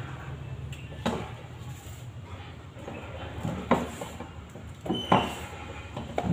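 A few sharp knocks and clatters from a home-made steel calendar clip press as a calendar is pressed down in its frame and lifted out.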